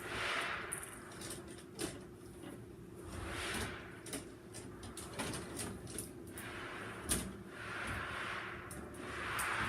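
Vinyl electrical tape being pulled off the roll in repeated rasping pulls of about a second each, with small clicks and taps between, as it is wrapped onto wires to mark them as neutrals.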